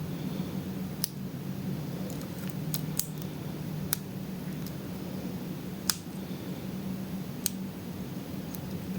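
Lock pick working the pins of a pin tumbler lock under a tension wrench: sparse, light metallic clicks, about seven spread irregularly over several seconds, over a steady low hum.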